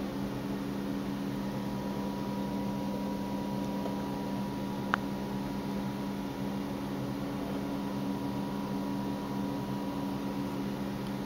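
A steady low mechanical hum with a faint high tone above it, and one sharp click about five seconds in.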